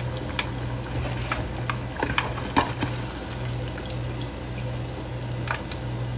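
Battered squash blossoms deep-frying in a small saucepan of hot oil: a steady sizzle with scattered sharp pops and crackles, over a low steady hum.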